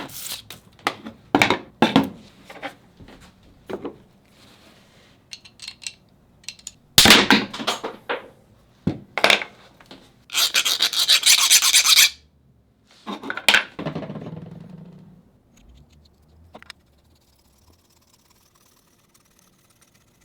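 Rasping, rubbing strokes of the metal ice cream scoop and its threaded bolt against the wooden handle as they are twisted together: a run of short scrapes, with a strong one about seven seconds in and a longer, louder one of about two seconds around ten seconds in.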